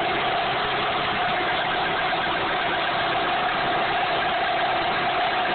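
1998 Dodge Neon's 2.0L DOHC four-cylinder engine running at a steady speed, with a steady whine above the engine noise. The owner suspects the water pump.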